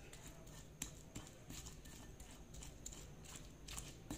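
Stone pestle (ulekan) pounding and grinding bird's-eye chillies and garlic in a volcanic stone mortar (cobek): faint, irregular knocks, two or three a second.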